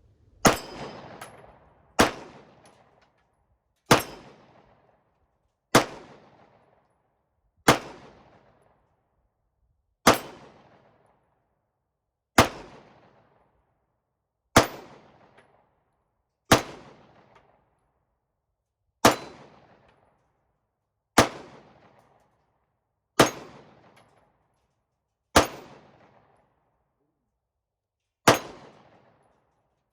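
Fourteen single shots from a Smith & Wesson M&P 2.0 9mm pistol, fired slowly at about one every two seconds at a small steel target. Each shot is a sharp crack with a short ringing tail.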